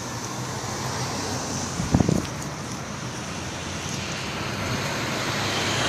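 Road traffic noise with wind buffeting the microphone, growing slowly louder toward the end. There is a brief thump about two seconds in.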